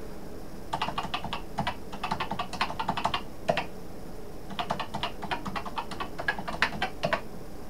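Typing on a Commodore PET (CBM) computer keyboard: two runs of quick key clicks, each about three seconds long, with a short pause between them.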